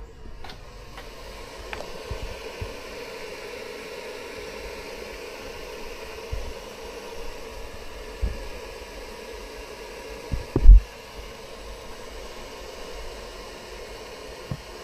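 Steady fan-like hiss with a faint hum underneath, broken by a few low thumps, the heaviest about ten and a half seconds in.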